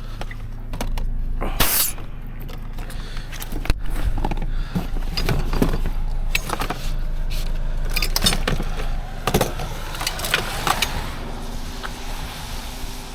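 Scattered clicks, knocks and rattles of things being handled, with a sharp clatter about two seconds in, over the steady low hum of a vehicle running.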